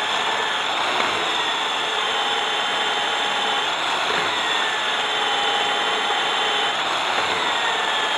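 DeWalt DW580EK diamond core drill grinding a core bit dry into stone, a steady loud grind. The motor whine sags in pitch and picks back up about every three seconds as the bit bites.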